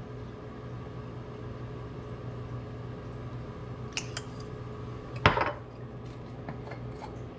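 A few light clicks as the cap goes back on a glass sauce bottle, then one sharp knock as the glass bottle is set down on a granite countertop, over a steady low hum.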